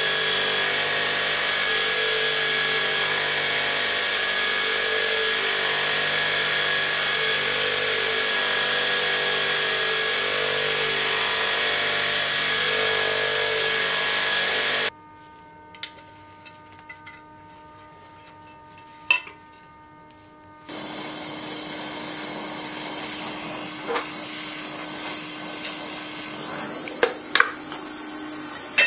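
Belt grinder running steadily with a workpiece pressed against the belt, the grinding swelling and easing about every two seconds. About fifteen seconds in it cuts off abruptly to a faint hum with a click or two. Some six seconds later a quieter rubbing noise starts, with scattered sharp taps near the end.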